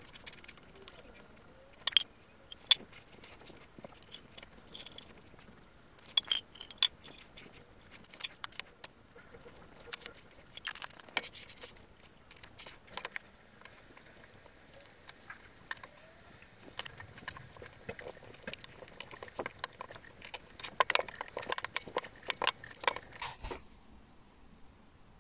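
Handling noise from gluing a table tennis rubber sheet: irregular sharp clicks and crackles as the glue brush and the tacky, glued rubber are worked by hand, thickest near the end.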